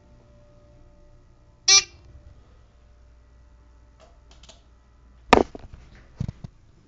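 Dover elevator car's signal sounds one brief, loud electronic tone. A few seconds later come faint clicks, then a loud clunk and two lighter knocks from the car and its doors.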